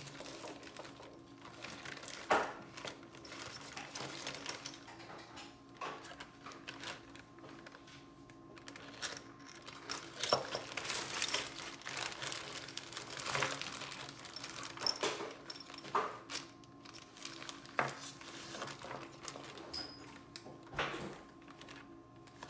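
Irregular clicks, taps and light rustling of small hard objects being handled, over a faint steady hum.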